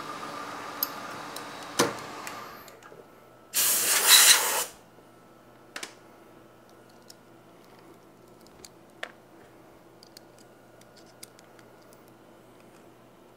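Milling machine end mill cutting a metal part, a steady machining sound with a sharp click, fading out about two and a half seconds in. About a second later comes a loud hiss about a second long: a compressed-air blast blowing the chips off the part and fixture. A few light clicks follow.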